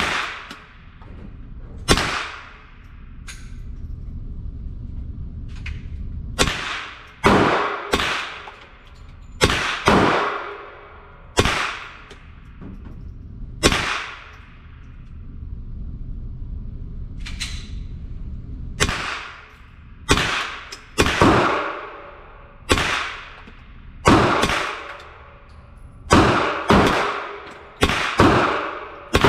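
Ruger 10/22 semi-automatic .22 LR rifle firing about twenty shots at an uneven pace, some in quick runs half a second to a second apart, others after pauses of a few seconds. Each shot is a sharp crack with an echoing tail in the indoor range booth.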